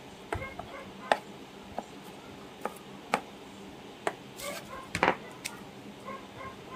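Kitchen knife chopping garlic cloves on a plastic cutting board, mincing them fine: sharp, irregular knocks about once a second, with a louder flurry of cuts around four to five seconds in.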